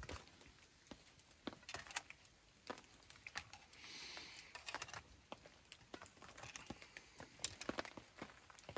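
Faint, irregular clicks and knocks of metal tongs against crab-leg shells, the frying pan and the bowls as curry is served, with a short scrape about four seconds in.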